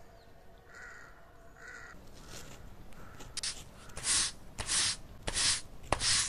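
A pointed stick scraping and gouging into dry, needle-strewn forest soil in a run of strokes about two-thirds of a second apart, growing louder from about three seconds in. Before that, a bird calls faintly twice.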